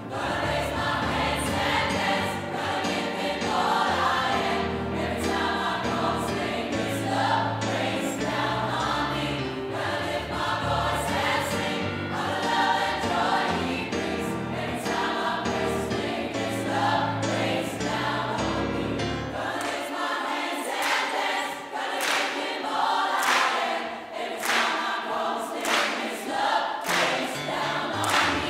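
Gospel choir of mixed voices singing a song in full harmony over a bass line. About two-thirds of the way through the bass drops out, leaving the voices with steady handclaps as the audience claps along.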